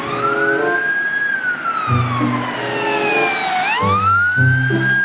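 Police siren wailing: one tone that climbs, sinks slowly for a couple of seconds, then sweeps back up near the end. Background music with a bass line plays under it.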